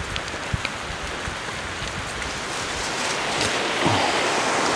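Steady rush of a mountain creek cascading down a rocky gully, growing louder about three seconds in, with a few soft thuds of footsteps on the slope.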